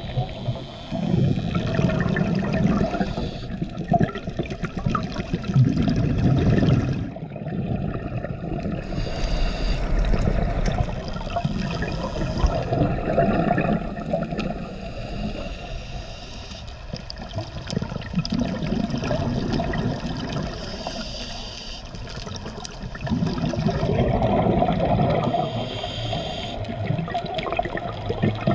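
Water sloshing and gurgling heard underwater through a camera's waterproof housing, muffled, swelling and fading every few seconds.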